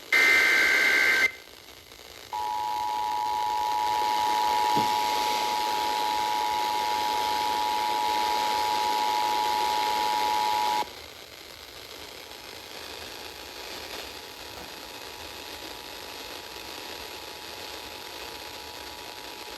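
Emergency Alert System broadcast over FM radio: the tail of a SAME data burst, a warbling pair of high tones, then after a short pause the EAS two-tone attention signal (853 and 960 Hz) sounding steadily for about eight seconds before dropping suddenly to a much fainter level, all over radio hiss.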